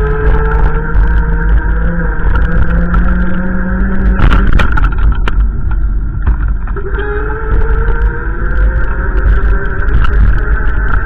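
Car engine pulling under acceleration: its hum rises in pitch, breaks off with a knock about four seconds in as it shifts up a gear, then climbs again. A heavy low rumble of road or wind noise runs under it.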